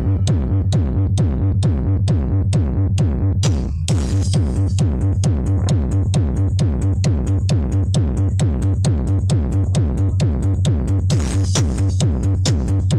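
Electronic dance music played loud through a mobile disco's wall of stacked loudspeaker cabinets: a steady pounding beat over heavy bass, with a brief break in the beat about four seconds in.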